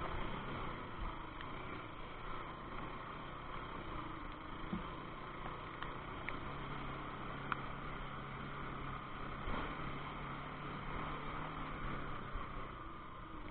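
Motorcycle engine running steadily under a continuous hiss, with a low steady hum coming in about halfway through.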